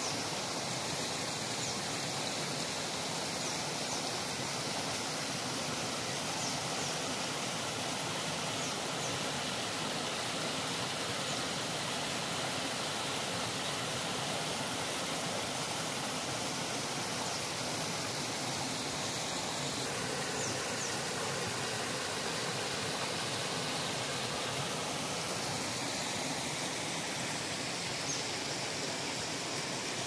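Stream water rushing and splashing over rocks through a broken masonry check dam: a steady, unbroken noise.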